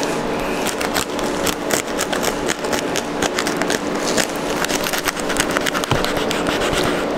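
Fillet knife blade scraping and clicking through bluefin tuna flesh along the backbone, a rapid, uneven run of small crackling clicks as it rides over bone, which he wonders may be cartilage.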